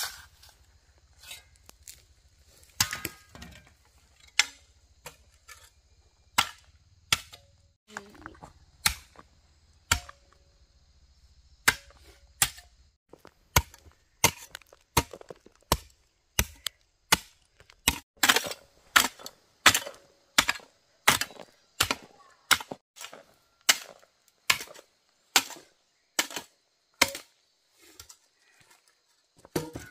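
Repeated sharp strikes of a hand tool, like chopping, irregular at first, then falling into a steady rhythm of about three strokes every two seconds from roughly halfway in.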